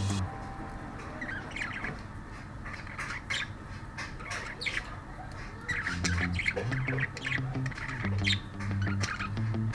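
Pet birds squawking and chirping in short, repeated calls. Low background music notes come in about halfway through.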